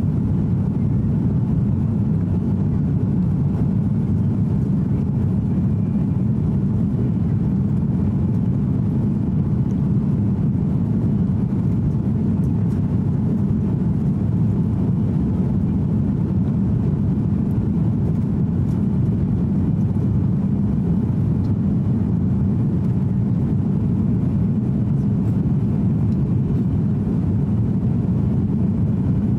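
Steady, deep drone of jet engines and airflow heard inside the cabin of an Airbus A330-300 climbing after takeoff, its Rolls-Royce Trent 700 engines running evenly with no change in pitch or level.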